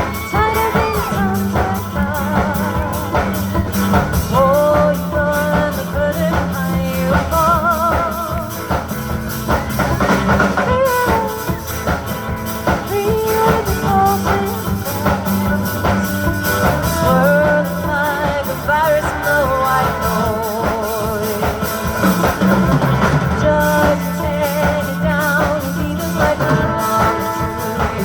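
Live band playing a rock song: drum kit, bass and guitar, with a wavering, vibrato-laden lead melody over them.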